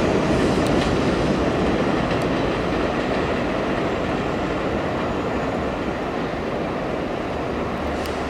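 R32 subway train running away along elevated track, its wheel and rail noise slowly fading as it recedes.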